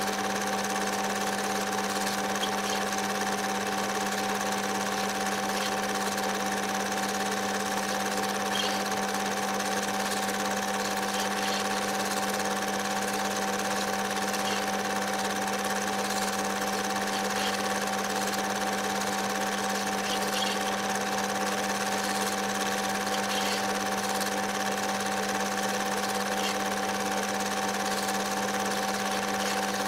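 Film projector running steadily: an even mechanical whirr with a constant hum and a higher whine, unchanging throughout.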